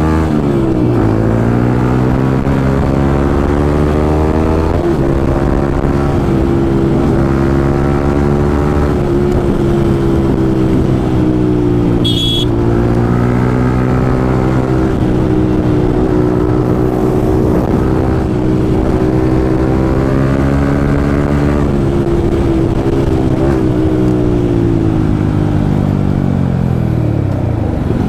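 Yamaha MT-15 single-cylinder motorcycle engine running under way. The revs drop in the first second, pick up about five seconds in and hold steady for a long stretch, then fall away near the end. A brief high click comes about twelve seconds in.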